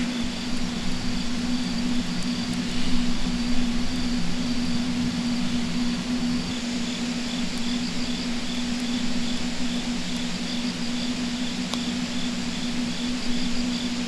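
Crickets chirping in steady repeating pulses over a constant low hum, with a couple of brief pops about three seconds in.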